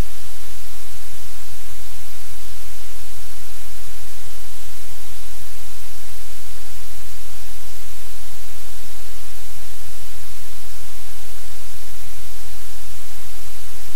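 Steady, loud static hiss with a low hum underneath, unchanging throughout; no distinct sound from the room stands out above it.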